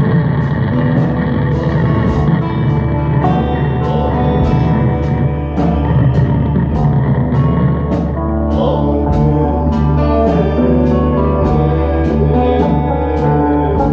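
Rock band playing: guitar over a drumbeat, with a cymbal struck about twice a second, in a recording of poor sound quality.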